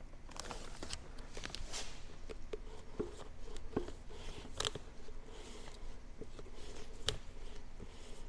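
Hughes torque converter being turned and pushed by hand onto a rebuilt TCI TH350 transmission's input shaft: scattered light metallic clicks and knocks as it rocks on the splines. It will not slide fully on, which the owner later puts down to a converter hub welded off center.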